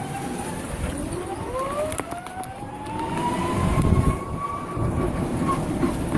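A taxi's motor whining and rising in pitch as it gathers speed, a second rising whine overlapping early on, over the rumble of the ride that swells about four seconds in.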